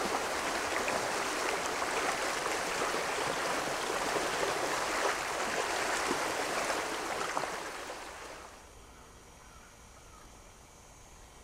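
Creek water rushing steadily past shelf ice and drifting ice floes. About eight seconds in the rushing fades away, leaving only a faint, quiet woodland background.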